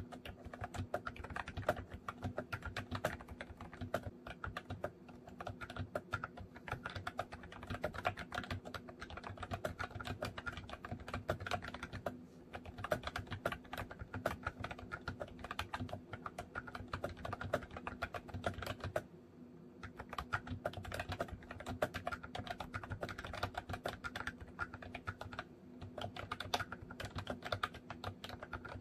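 Continuous fast typing on a MOFii Retro Style Candy keyboard, dense key clicks with two brief pauses, one about twelve seconds in and one about nineteen seconds in.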